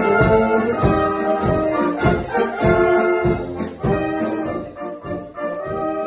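A wind band with tubas and other brass playing a polka live: melody lines in held notes over low bass notes on a steady beat about twice a second.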